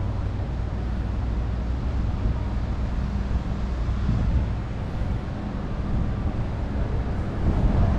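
Steady low drone of a vehicle's engine, heard from on board, at an even level throughout.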